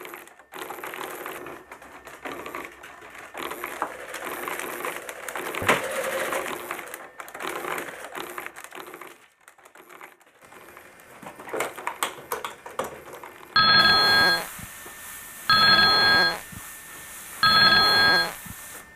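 A stretch of clattering and rustling, then a telephone ringing three times, each ring about a second long and about two seconds apart.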